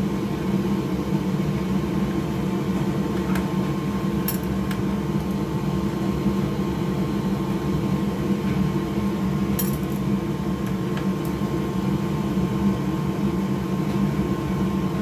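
Steady hum of a workshop fan or similar motor running, with a few faint metallic clicks from small screws and a screwdriver, about three seconds in, again a second later, and near ten seconds.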